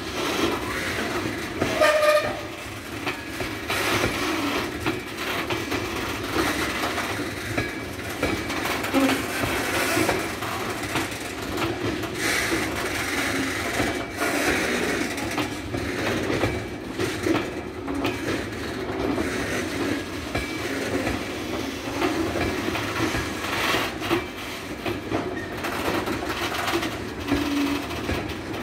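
Rake of engineer's open box wagons rolling past at steady speed: continuous wheel-on-rail rumble and clatter of the wagons, with short squealing tones from the wheels now and then.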